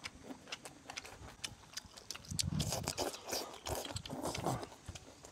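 A person eating: wet chewing and lip-smacking clicks throughout, with a few low hummed "mm" murmurs of enjoyment in the middle.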